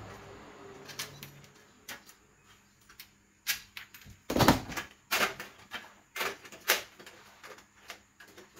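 Aluminium panel strips knocking and clattering against each other and the aluminium cabinet frame as they are handled and fitted into place: a string of sharp, uneven knocks, the loudest about four and a half seconds in.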